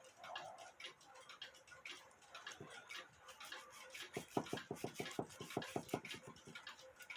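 A brush scrubbing the metal of a cuckoo clock movement to clean off grime and rust: faint scratchy strokes that turn into a quick, even back-and-forth about four seconds in.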